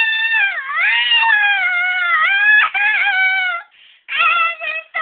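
A woman's high-pitched, wordless wail, held and wavering for about three and a half seconds, then breaking into a string of short, yelped syllables.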